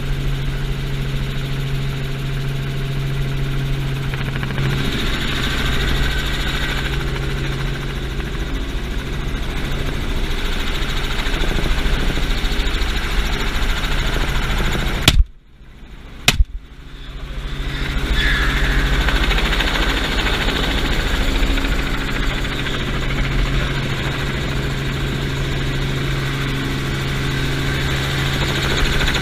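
Steady drone of a light helicopter's engine and rotor heard from an open-door cabin. About halfway through, two 12-gauge shotgun blasts from a FosTech Origin 12 semi-automatic shotgun go off a little over a second apart, the sound briefly cutting out after each.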